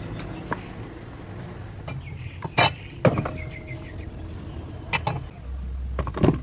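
Kitchen handling sounds: a handful of sharp knocks and clinks from a cleaver and vegetables being handled, with a quick cluster of clinks near the end as vegetables go into a steel bowl, over a low steady rumble.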